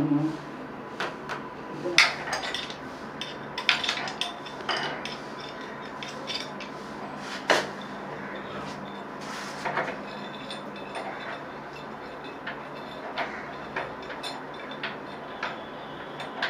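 Irregular sharp metallic clinks and knocks of plumbing tools and pipe fittings being handled and worked, over a low steady hum.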